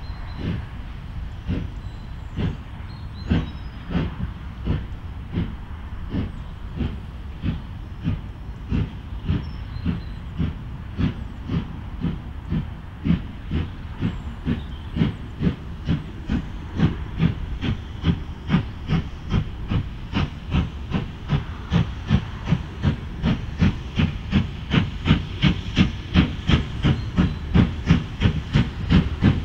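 Steam locomotive working under power, with a hiss of steam under its exhaust beats. The beats come steadily faster and louder, reaching about two a second near the end.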